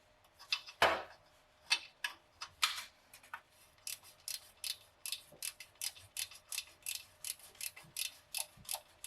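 Hand ratchet clicking as an exhaust manifold bolt is backed out: a few single clicks at first, then from about three seconds in a steady run of about four clicks a second as the ratchet is worked back and forth.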